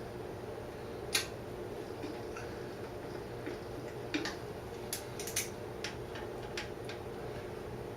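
Scattered sharp metallic clicks and taps at irregular intervals, from a hand tool working a tight nut on a motorcycle, over a steady low hum.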